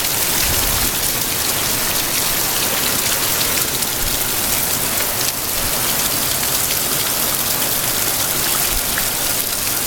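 Heavy rain pouring down, a loud, steady hiss with no let-up.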